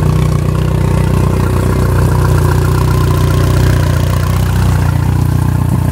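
Yamaha four-stroke outboard motor idling steadily in neutral. It was freshly serviced and started up on the stand about half a minute earlier.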